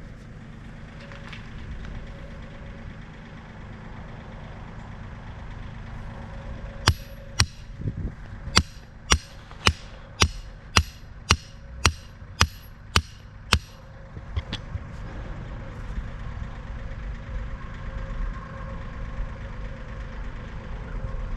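An engine idling steadily, with a run of about a dozen sharp, evenly spaced knocks, roughly two a second, in the middle.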